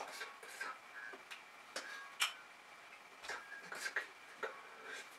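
Irregular soft clicks and taps, about two or three a second at uneven spacing, over a faint steady high whine.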